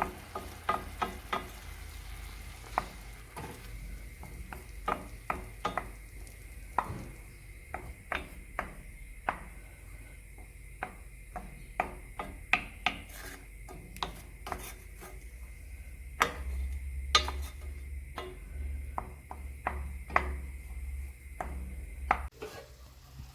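Food being stirred in a frying pan, with a utensil knocking and clicking irregularly against the pan over a faint sizzle.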